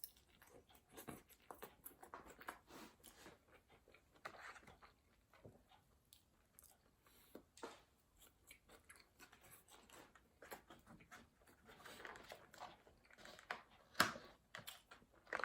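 Close-miked chewing and wet mouth sounds of someone eating In-N-Out animal fries: faint, irregular smacks and soft clicks, with one sharper click near the end.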